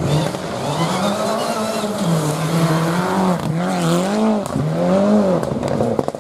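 Rally car engine at full throttle on a gravel stage, the revs climbing and falling again and again with short lifts between gear changes, and a few sharp cracks near the end.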